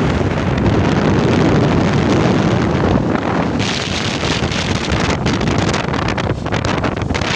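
Wind buffeting the microphone of a moving vehicle, a loud steady rush that gets hissier about three and a half seconds in.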